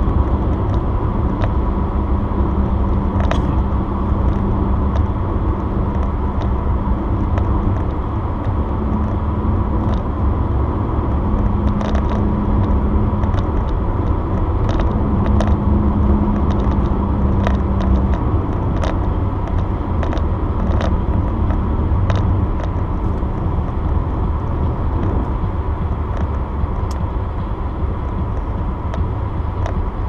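Steady road and tyre noise of a car cruising at highway speed, heard from inside the cabin. A low hum comes and goes, and faint ticks are scattered throughout.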